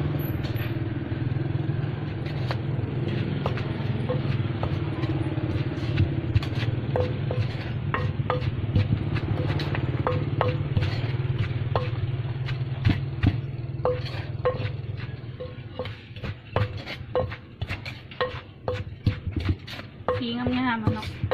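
Wooden pestle pounding shredded green papaya salad in a clay mortar: steady knocks about twice a second. A low steady rumble runs underneath and fades about two-thirds of the way through.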